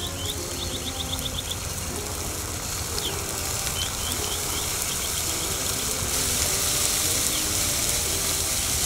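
Hot oil in a propane turkey fryer sizzling as the turkey goes in, boiling over onto the burner and catching fire: a steady hiss that grows a little louder in the second half. Birds chirp briefly now and then.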